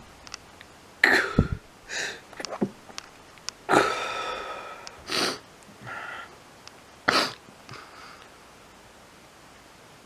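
A person sneezing again and again, with sniffs between the sneezes. The loudest bursts come about a second in and just under four seconds in, the second one drawn out and voiced.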